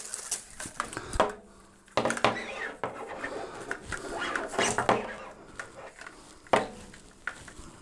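Handling noise from an LED flood light and its power cable being pulled through the metal mounting bracket: scattered clicks, knocks and rustling, with a few sharper knocks.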